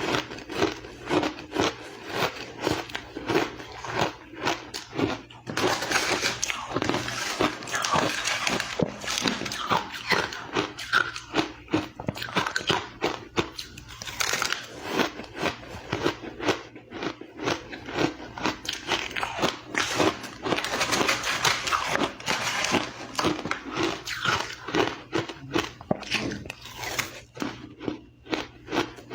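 A person biting and chewing ice close to the microphone: rapid, dense crunching that keeps up throughout, growing thicker in a few stretches.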